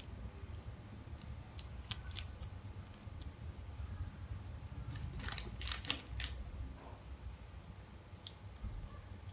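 Small plastic instant-noodle seasoning sachets being handled and squeezed, with a few scattered sharp clicks and a cluster of crinkles a little past the middle, then a single scissor snip near the end as a sachet is cut open.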